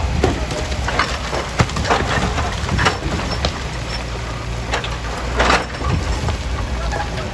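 Heavy quarry machinery with a diesel engine running steadily while rock is broken, with irregular cracks and clattering of stone throughout.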